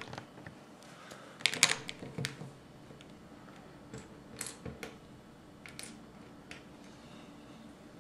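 Plastic Lego tiles clicking and tapping as they are pressed onto a baseplate. There is a quick cluster of sharp clicks about a second and a half in, then single clicks every second or so.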